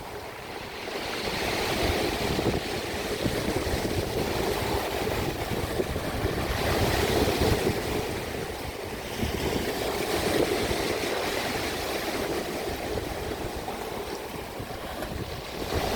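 Sea waves washing in, an even rush of surf that swells and eases every few seconds, with a low rumble of wind on the microphone.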